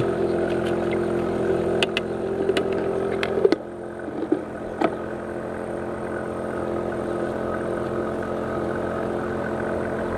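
A steady engine-like hum that drops in level about three and a half seconds in. A few sharp clicks and knocks come in the first five seconds.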